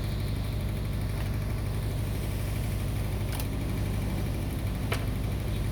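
Steady low mechanical hum, like an engine idling, with two sharp clicks, one about three and a half seconds in and another about a second and a half later.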